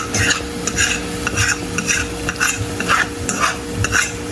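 A utensil stirring and scraping potatoes and egg around a pot of hot oil, about two strokes a second, with the food sizzling as it fries.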